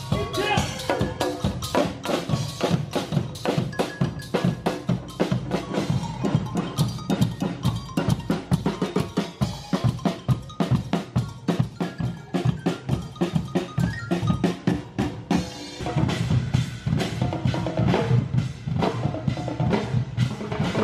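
A live group of drummers playing a fast, steady rhythm, with bass drum and snare-like strokes.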